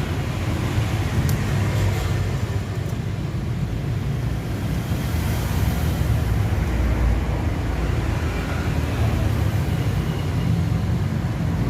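A steady low mechanical hum, with a few faint light clicks about one to three seconds in.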